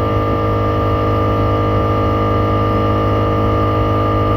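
Reed-valve air compressor running steadily, pumping its tank back up on newly fitted flat reed valves, with a constant motor hum.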